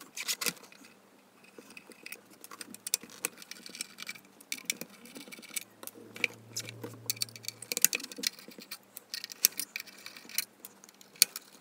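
Small Torx screws being undone from a sheet-metal chassis with a hand screwdriver: irregular light metallic clicks and clinks of the driver bit and loose screws.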